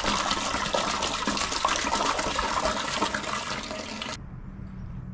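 Ocean water poured from a plastic bottle into a stainless steel stock pot, splashing steadily as the pot fills. It cuts off suddenly about four seconds in, leaving only a low hum.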